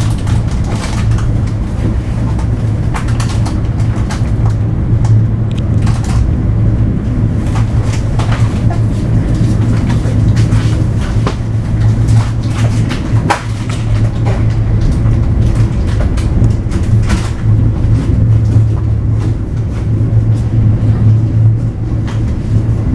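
A local passenger train running along the line, heard from inside the carriage: a steady, loud low hum and rumble with scattered sharp clicks and knocks from the wheels and running gear.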